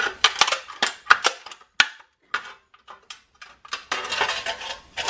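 The cut-open thin stainless steel walls of a double-walled Yeti bottle being bent and handled: a run of sharp metallic clinks and crinkles, a short lull, then scraping and rattling of the sheet metal near the end.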